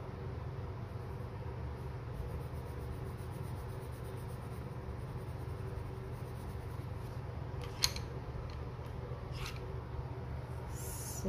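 Deli watercolour pencil scratching on paper as a swatch is coloured in, faint over a steady low hum. A sharp click comes about eight seconds in, a softer one a little later, and a short hiss just before the end.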